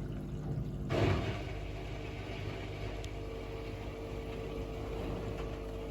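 Washing machine draining after its final rinse: a steady motor hum, with a brief swell of noise about a second in and a thin steady tone joining partway through.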